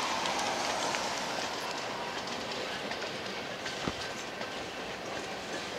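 BNSF freight train with GE diesel locomotives rolling past: a steady noise of engines and steel wheels on the rails, with one sharp click about four seconds in.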